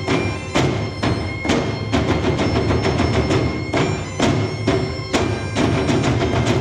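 Wooden wine barrels struck with sticks as drums in a driving ensemble rhythm, with a bagpipe melody held over the top.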